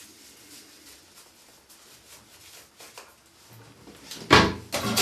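Faint rustling of toilet paper wiping a mobile phone, then a wooden toilet lid drops shut onto the seat with one loud clack about four seconds in. A toilet flush starts rushing just at the end.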